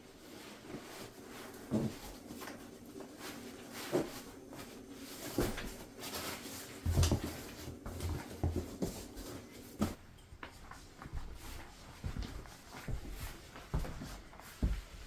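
Nylon rustling and soft thumps of camping gear being packed: a sleeping bag pushed into a stuff sack and a folding foam sleeping pad handled, with irregular crinkles and a few dull knocks.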